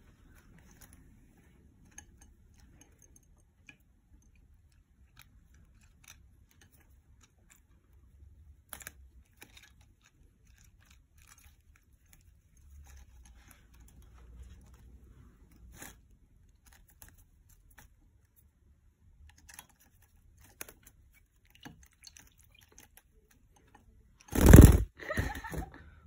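Budgerigar bathing in a shallow bowl of water among leaves: faint scattered splashes, pecks and rustles. A brief loud thump and rustle comes near the end.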